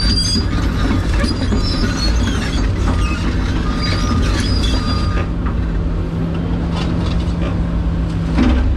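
Excavator's diesel engine running steadily, heard from inside the cab, with intermittent metallic squeals and clanks from the machine's moving parts, mostly in the first five seconds or so.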